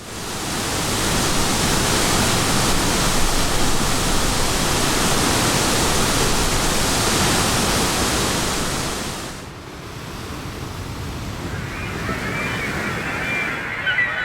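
Steady rush of falling water from a waterfall, fading in at the start and cutting off about two thirds of the way through. A quieter background follows, with thin, wavering high-pitched sounds near the end.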